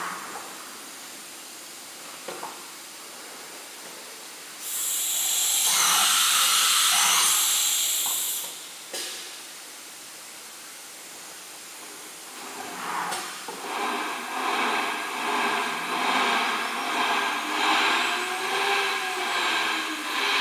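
CNC router's pneumatic automatic tool change: a loud hiss of compressed air lasting about four seconds as the spindle releases and clamps a tool, then a sharp click. Near the end the spindle and axis motors start up, a whine of several steady tones with lower tones rising and falling as the gantry moves.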